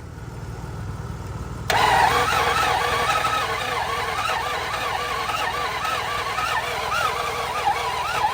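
A 1995 BMW 750iL's V12 being cranked by its starter without catching. The cranking comes in suddenly and loud about a second and a half in, with a whine that rises and falls in a steady rhythm. Several of its fuel injectors are disconnected, and the owner suspects a faulty starter that smokes on long cranking.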